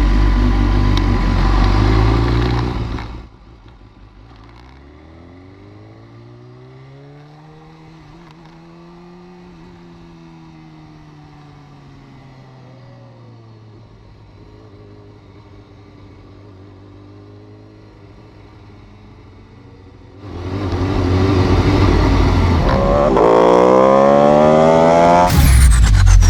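Motorcycle engine running loud, then a quieter stretch in which the engine pitch slowly rises and falls, then loud again with the revs climbing steeply near the end.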